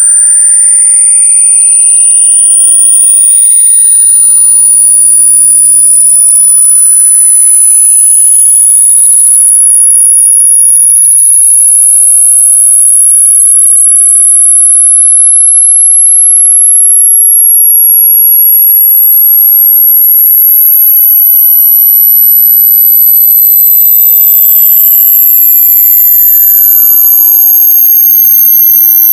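Very loud, high-pitched electronic sine tone, gliding slowly upward in pitch. Fainter whistling tones sweep up and down against it, crossing it about halfway through.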